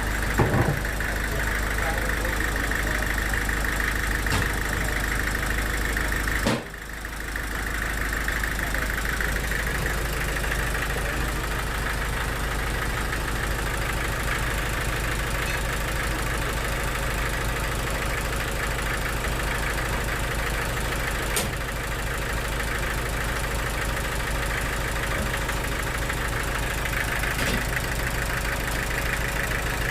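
An engine running steadily at an even speed, with a brief dip about six and a half seconds in.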